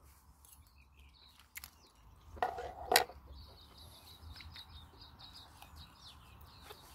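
A few light clinks of cutlery on a plate, the loudest about three seconds in. Then a bird chirps in the background in a quick run of short, high chirps from about four seconds in.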